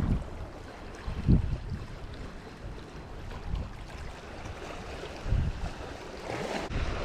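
Sea waves washing against rocks, with gusts of wind buffeting the microphone in low rumbles, the strongest about a second in and again near five seconds.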